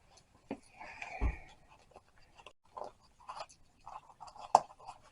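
Faint rustling and small clicks as snap fastener parts and canvas are handled, with one sharper click about four and a half seconds in.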